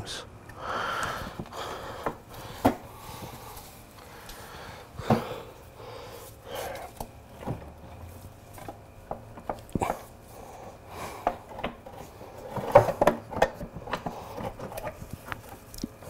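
Scattered light clicks and knocks with some rubbing as metal parts of a motorcycle's rear wheel assembly are handled and fitted by hand, with a sharper knock about ten seconds in and a cluster of louder knocks a few seconds later.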